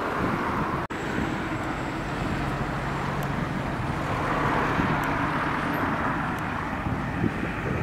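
CP series 2240 electric multiple unit running in toward the platform: a steady rumble of the train with a low hum, the sound cutting out for an instant about a second in.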